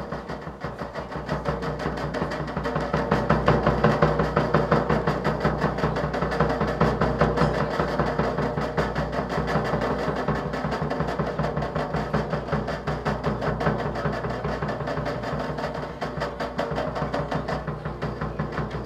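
A large drum beaten with a stick in a fast, steady, driving rhythm, with other percussion struck along with it.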